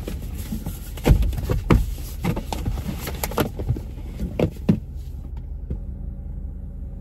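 Takeout bags and drink cups rustling and knocking as they are handled: a run of sharp crinkles and knocks that stops after about five seconds. Under it is the steady low hum of a car's running engine.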